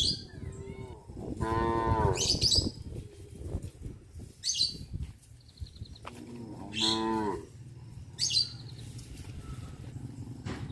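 Cattle mooing: two long moos, the first about a second and a half in and the second about six seconds in.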